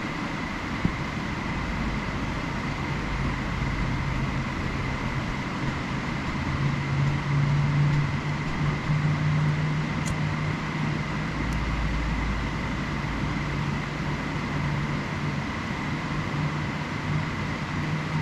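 Steady outdoor background rumble and hiss with a faint steady high tone. A low hum swells through the middle and fades again, and there is a single sharp click about a second in.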